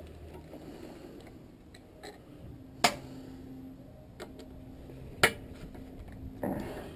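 Two sharp clicks about two and a half seconds apart, with fainter ticks between and a short scrape near the end: tools and small parts being handled while a water heater control box is taken apart.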